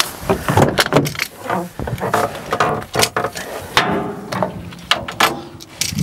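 Metal clanking: a string of irregular sharp knocks and clinks, some with short metallic ringing, as tools and steel parts are handled during reassembly of a bulldozer.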